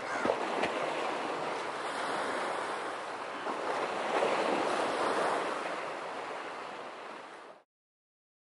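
Small sea waves washing against the shore, with wind on the microphone; the sound swells and eases, then fades and cuts off about seven and a half seconds in.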